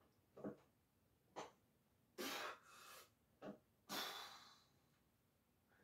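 A man's forceful breathing while pressing dumbbells on a bench: about six short, sharp breaths and exhales, one every second or so, the two strongest near the middle of the stretch.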